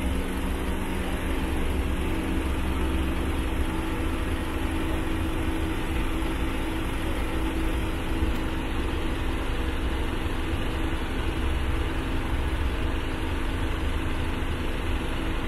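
A motor running steadily at idle: an even low rumble with a constant hum, not changing in pitch or level.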